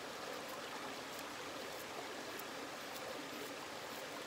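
HELLE Eggen knife shaving thin curls down a wooden stick to make a feather stick, faint scrapes roughly every half second. Under it runs a steady rush of running water.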